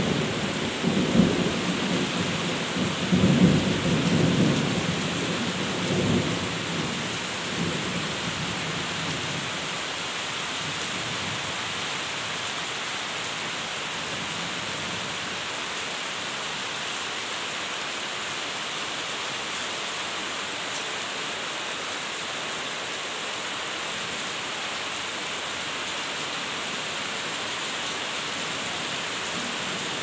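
Heavy rain falling steadily on the leaves of trees and bushes, a dense even hiss. A low rumbling comes and goes through the first several seconds, then fades away, leaving only the rain.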